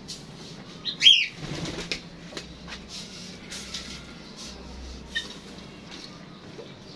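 Caged pigeons and cockatiels stirring, with wings flapping and scattered light clicks. About a second in comes one sharp bird call that slides down in pitch.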